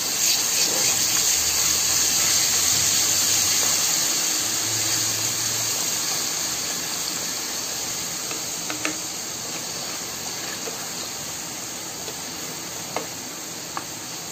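Ginger-garlic paste sizzling in hot oil, a steady hiss that slowly dies down as it is stirred, with a few light taps of a plastic spatula against the pan in the second half.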